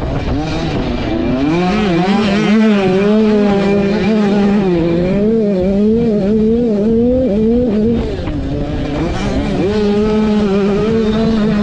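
KTM supermini two-stroke dirt bike engine running hard near wide-open throttle. Its pitch rises and falls with throttle and gear changes. It briefly drops off about a second in and again about eight seconds in, then climbs back.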